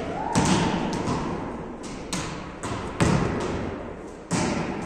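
Volleyballs being struck by hands and forearms and bouncing on the wooden gym floor: several irregular sharp smacks, each ringing briefly in the echoing hall.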